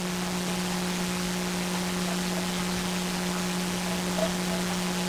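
Steady hiss of room tone and recording noise, with a low steady electrical hum underneath.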